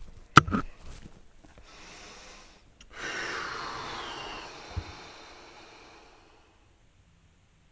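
A sharp click about half a second in, then a person breathing out: a long, breathy exhale starting about three seconds in and fading away by about six seconds.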